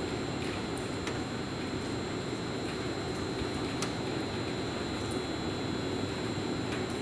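Steady hum and hiss of a Seibu 10000 series electric train standing still, its on-board equipment running, with faint steady high-pitched whines and a few light clicks.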